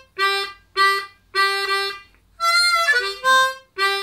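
C diatonic harmonica played in second position. It plays three short, clipped low draw notes, then about two and a half seconds in a high wavering wailed note that slides down through a short breath out, and ends on another short low draw note.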